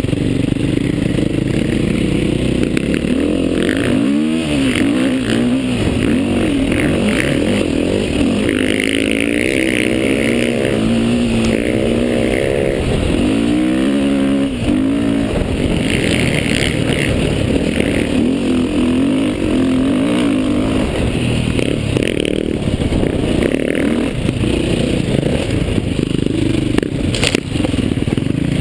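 Dirt bike engine running hard, its pitch rising and falling with the throttle, most sharply about four seconds in and again around thirteen to fifteen seconds in, over a steady rushing noise from the ride through sand and shallow water.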